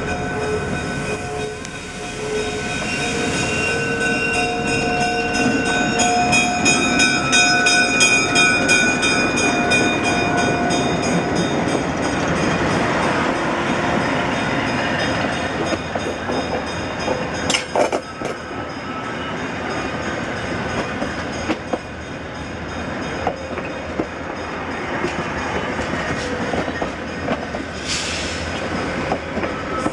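EMD E5 diesel passenger locomotive running past with its engines working, sounding steady tones that shift in pitch through roughly the first ten seconds. Then stainless-steel passenger cars roll by, wheels rumbling and clicking over the rail joints.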